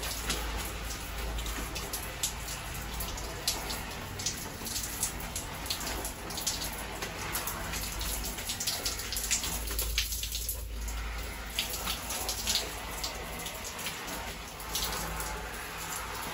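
Shower spray running steadily and pattering on the hood and shoulders of an Arc'teryx rain jacket: a continuous hiss of water dotted with many small drop taps.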